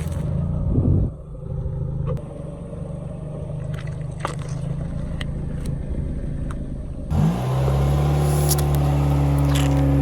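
Car engine running with a steady low hum and a few sharp cracks. About seven seconds in it revs up and holds at a higher, louder pitch.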